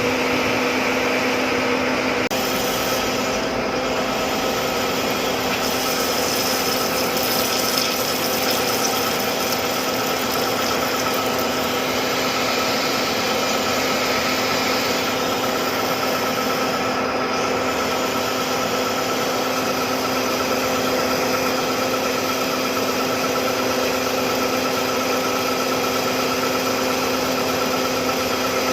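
Metalworking machine running steadily in the shop, a constant machine whine with several steady tones over a noisy hum.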